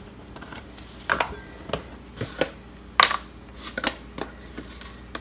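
A few irregular clicks and clinks of a glass spice jar and a metal spoon being handled, the loudest about three seconds in.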